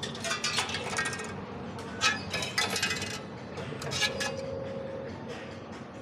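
Coins clinking and jingling in several quick clusters of small metallic strikes, with a steady beep lasting about a second around four seconds in.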